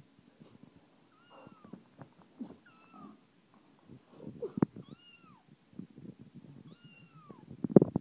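A phone's cat ringtone, a recorded meow that rises and falls, repeating four times about every two and a half seconds, over scattered low bumps and knocks.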